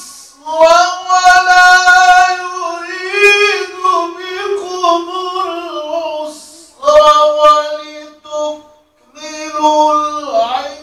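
A man's voice reciting the Quran in melodic tajweed style: long held notes with ornamented runs, broken by two short breath pauses. The last phrase slides down in pitch near the end.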